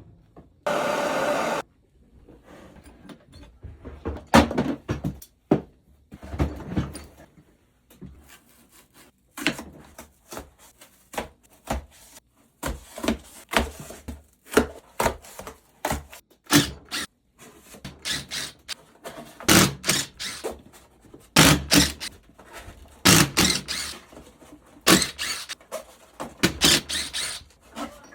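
Tools working on a 2002 Yamaha YZ250F engine during teardown: a short whirr of a power tool about a second in, then irregular metallic knocks, taps and clatter of hand tools and parts against the engine cases.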